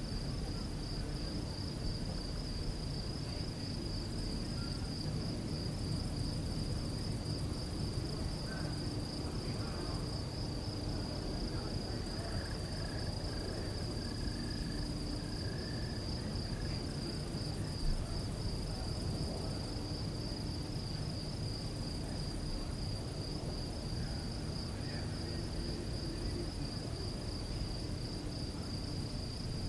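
Field crickets chirping at night in a continuous chorus, a high, rapidly pulsing trill that holds steady throughout, over a low background rumble.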